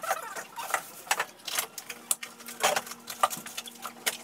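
Groceries being unpacked from a cooler into a refrigerator: a run of light clicks, knocks and clatters as packages and containers are lifted out and set on the fridge shelves. A faint steady hum comes in about halfway through.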